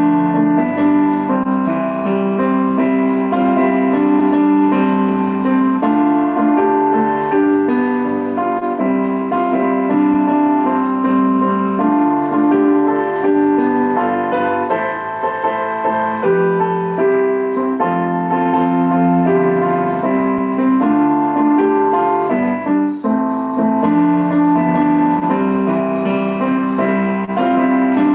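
Piano music: a steady keyboard accompaniment of held chords and melody notes, with a light regular ticking beat above it.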